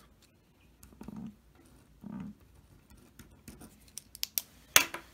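Marker pen writing on paper: a string of short scratchy strokes, with a sharp click near the end.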